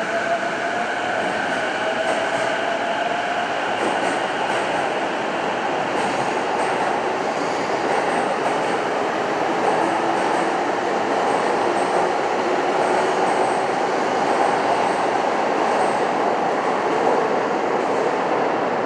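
Electric commuter train moving along an underground station platform: a steady rumble of wheels on rail, with a faint motor whine whose pitch shifts during the first few seconds.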